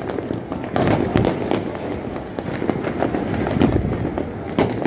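Fireworks and firecrackers going off: a dense run of cracks and pops over a steady rumble, with one sharp crack near the end.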